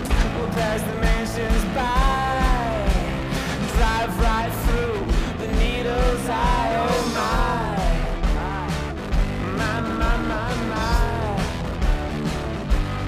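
Rock band playing live: a man sings over electric guitar and drums with a steady, driving beat.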